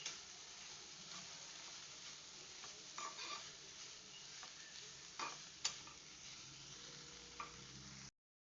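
Food sizzling steadily in hot oil in a pan, with a spoon stirring and scraping against the pan a few times.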